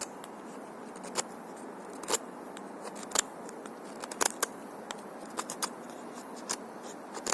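Small money-clip pocket knife cutting into wood: a series of sharp, short cuts, roughly one a second and sometimes two in quick succession, as the blade bites into the wood with hard power strokes.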